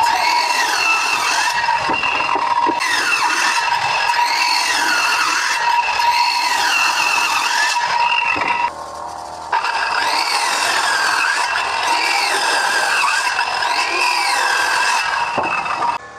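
A power tool working wood: a steady high whine with pitches that sweep up and down again and again, cutting out briefly about nine seconds in and stopping near the end.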